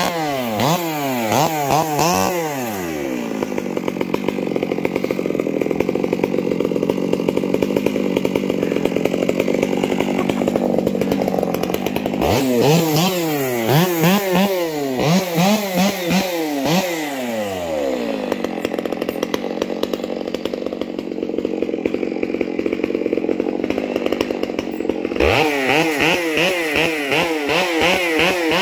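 Gas chainsaw engine running throughout. In three spells its speed swings rapidly up and down, between longer stretches of steadier running.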